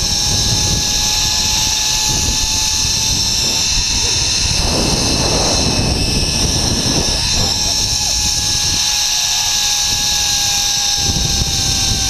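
Zip line trolley running fast along a half-inch steel cable: a steady thin whine that slowly drifts lower in pitch, under heavy wind rumble on the microphone.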